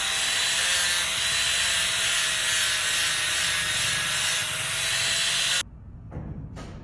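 A power tool running steadily with a high, hissing whine, cutting off suddenly near the end, followed by a few faint clicks.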